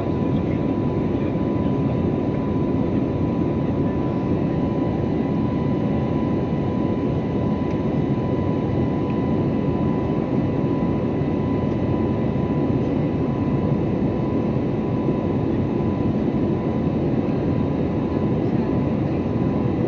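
Steady cabin noise of a jet airliner in flight: the hum of the turbofan engines and rushing airflow, heard from inside the passenger cabin, with a faint steady high tone running through it.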